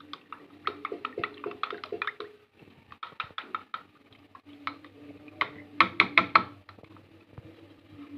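Metal spoon clinking and scraping against a ceramic bowl while stirring a thin masala paste. The sound comes in quick runs of taps with a faint ring from the bowl, and is loudest about six seconds in.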